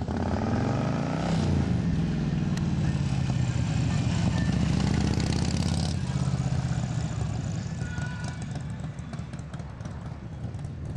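Harley-Davidson touring motorcycle's V-twin engine running as the bike rides past, its pitch sweeping in the first second or two. It is loud until about six seconds in, then quieter.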